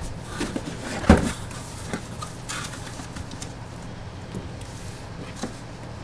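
Handling and opening of mini-helmet packaging: scattered knocks, clicks and a brief rustle of cardboard and plastic. The sharpest knock comes about a second in. A low steady hum runs underneath.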